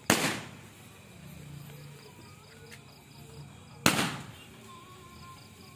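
Homemade 20-shot firework star cake firing: two sharp shots about four seconds apart, each with a short fading tail.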